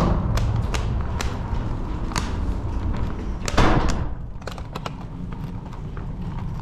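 Footsteps and handling noise from someone walking through a glass entrance door and down a hallway carrying a paper takeout bag: scattered light knocks and clicks over a low rumble, with a louder thump and swish about three and a half seconds in.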